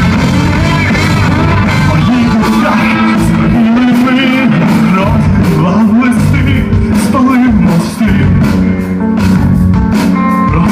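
Live rock band playing loud, with a voice singing over electric guitar, bass and drums.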